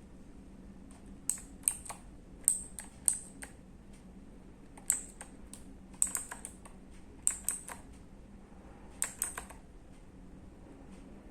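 Keys being pressed on an E-Yooso Z686 mechanical keyboard: sharp clacks in short, irregular bursts of a few presses each, with pauses between.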